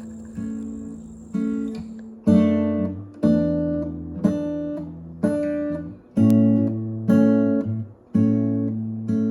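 Background music: an acoustic guitar strumming chords, about one strum a second, each ringing out before the next, getting louder a couple of seconds in.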